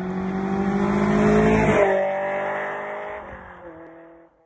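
A car passing by at speed: its engine note grows louder, drops sharply in pitch as it goes past about two seconds in, then fades away.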